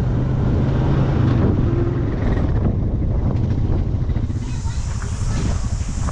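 Farm vehicle engine running steadily, with wind buffeting the microphone; a hiss joins in about two-thirds of the way through.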